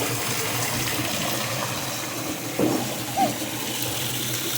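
Water running steadily from a tap during a puppy's bath, with a couple of brief short sounds, one a squeak, a little past the middle.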